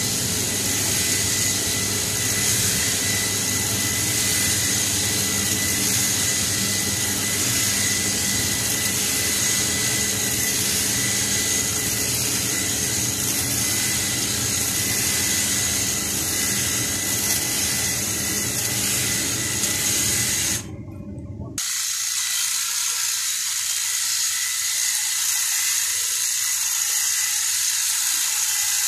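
Makita hedge trimmer running steadily as it cuts through leafy plants, a continuous buzzing motor with a steady high whine. About two-thirds of the way in the sound breaks off for a moment and resumes thinner, without its low hum.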